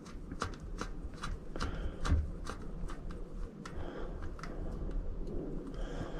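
Irregular small clicks and rustling of hands working on a bike wheel, screwing down the lock nut of a tubeless valve by hand.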